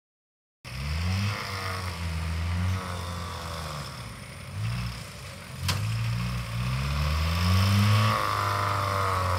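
Off-road 4x4's engine revving up and down as the vehicle works slowly through a tight course, its low pitch rising and falling again and again. A single sharp click about five and a half seconds in.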